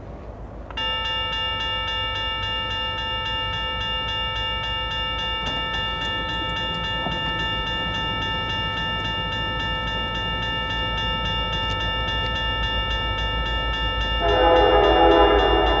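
Safetran Type 1 electronic crossing bell starts about a second in and rings steadily with rapid, even dings. Near the end a locomotive's Sandcast K3L five-chime horn sounds over it, the loudest thing heard.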